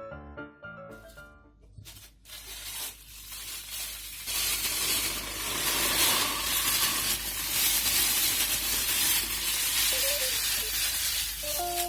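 Food sizzling in a hot frying pan, a steady hiss that starts about four seconds in, with background music fading in and out.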